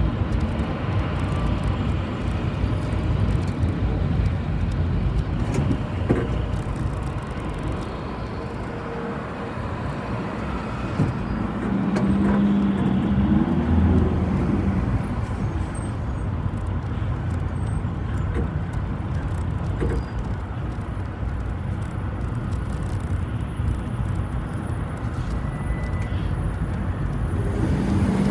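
City bus under way, its engine and road noise heard from on board as a steady rumble, with a short rising-and-falling tone about halfway through.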